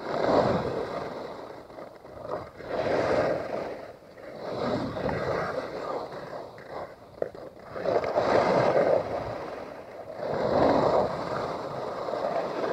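Skis scraping across hard snow through a run of turns, a swell of hiss about every two to three seconds.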